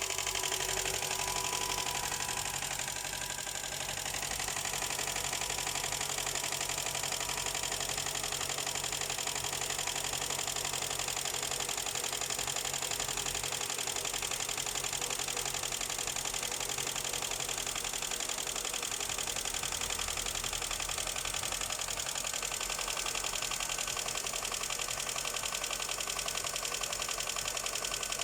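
Seventh-generation Honda Accord engine running steadily with a fast, even knock from the engine bay, the knocking the owner is trying to locate.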